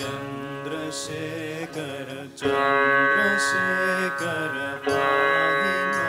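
Live Indian devotional music: a sitar playing over a steady drone, with a male voice singing in ornamented, gliding phrases. The music swells louder about two and a half seconds in.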